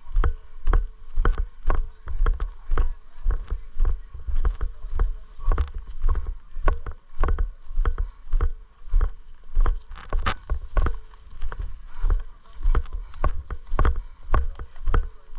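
Footsteps of a player in airsoft gear jogging, an even thud about three times a second, each step jolting the body-worn microphone.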